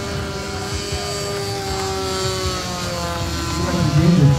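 Radio-controlled model aircraft built as a flying lawn mower, its motor and propeller droning steadily as it flies overhead. The pitch sinks slowly as it passes by.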